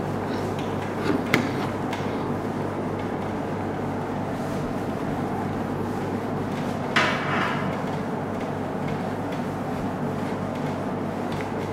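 Cloth wiping a whiteboard over a steady background hum. There are two light knocks about a second in and one louder, brief swipe about seven seconds in.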